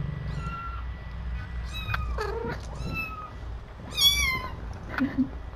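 Young kittens squeaking: a string of short, high mews that fall in pitch, with the loudest about four seconds in.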